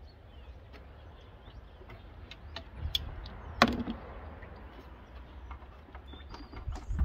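Scattered small clicks and knocks of hands working coolant hoses and plastic fittings in a car engine bay, with one sharper knock about three and a half seconds in, over a low steady hum.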